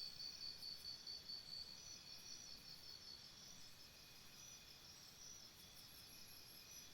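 Faint jungle ambience of insects chirping in quick, even pulses, about five a second, with several chirping voices layered at different pitches; the main pulsing fades a little midway and comes back near the end.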